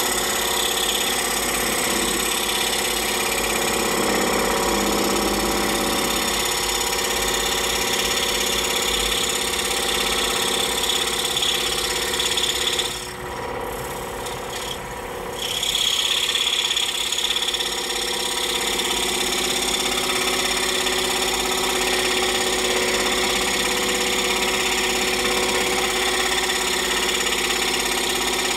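Scroll saw running steadily, its blade cutting through a wooden block in a compound cut. About 13 s in, the cutting noise thins and drops for a couple of seconds, then picks up again.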